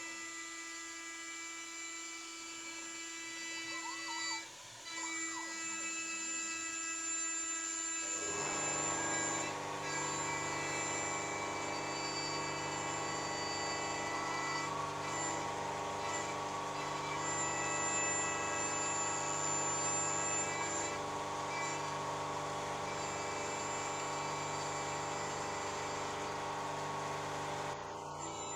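CNC milling machine running with steady motor whine. About eight seconds in, a louder, denser machining sound starts and holds steady, typical of the cutter working aluminium stock.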